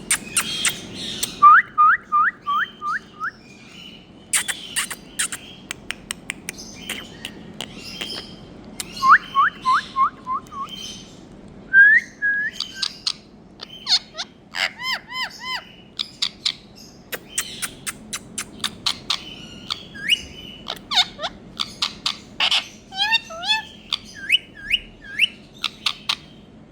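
Indian ringneck parrot (rose-ringed parakeet) calling: runs of quick rising chirps mixed with sharp squawks and chatter. A run of about six rising notes comes twice, near the start and about a third of the way in.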